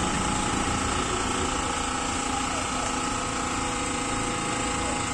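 Steady hum of a running motor, holding several fixed tones without change.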